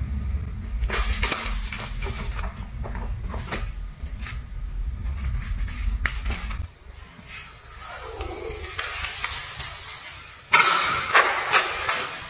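Crinkly coloured paper on a cardboard tube rustling and crackling in short bursts as cats bat and bite it on a tile floor, with a louder burst of crackling near the end. A low steady rumble runs underneath and stops about two-thirds of the way in.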